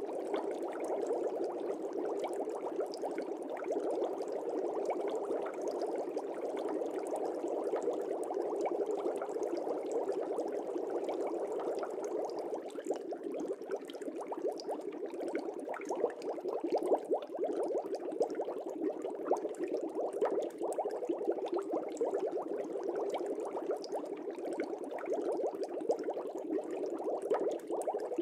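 Fish tank water bubbling: a steady stream of small air bubbles, heard as a dense, even crackle of tiny pops.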